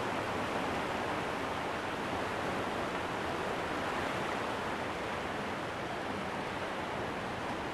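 River rapids rushing and churning white over rock ledges, a steady, unbroken roar of water.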